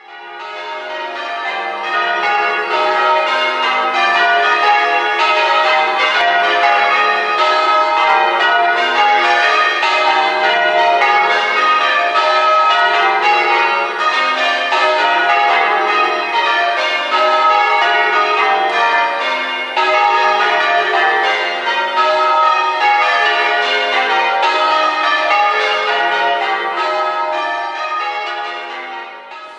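Tower bells rung from ropes in change ringing: a steady, even run of overlapping bell strikes. It fades in at the start and fades out near the end.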